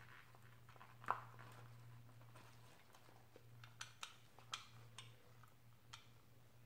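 Near silence: faint handling sounds, a few soft clicks and rubs, as an electronic throttle body is wiped dry with a paper towel in a gloved hand, over a faint steady low hum.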